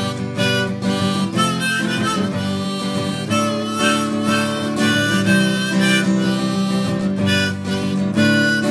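Instrumental break of a song: harmonica playing a melody over guitar accompaniment.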